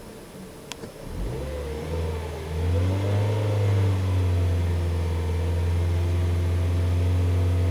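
Audi A4 1.8T's turbocharged four-cylinder engine brought up on the throttle from about a second in, then held at raised revs from about 3 seconds on, with a steady low drone and a wavering pitched tone over it. The whistle under throttle comes from a new K03 turbo that the owner found to be bad.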